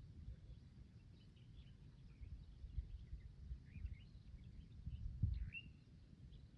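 Scattered faint bird chirps, one clearer rising chirp near the end, over irregular low thumps and rumble from a hiker's footsteps and a handheld camera.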